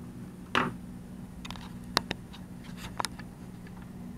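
Light clicks and taps from handling a laptop's screen panel and hinges, with a short scuff about half a second in and pairs of sharp clicks around the middle, over a steady low hum.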